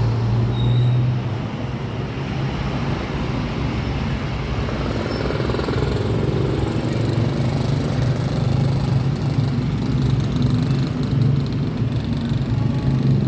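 Road traffic: vehicle engines running with a steady low hum and road noise.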